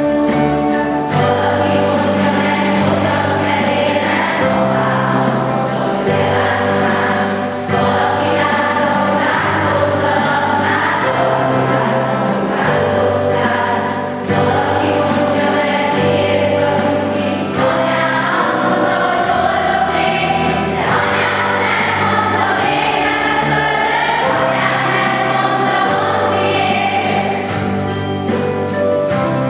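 School choir singing a song with instrumental accompaniment, the instruments holding steady chords under the voices.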